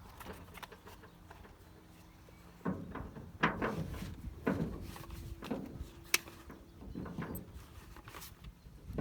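Irregular clicks and knocks of two spanners working the nut on a new PTO shear bolt, as it is tightened.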